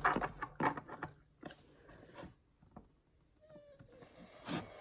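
Small plastic toy parts being handled and pressed together: scattered light clicks and taps with quiet gaps, and a brief faint high tone a little past the middle.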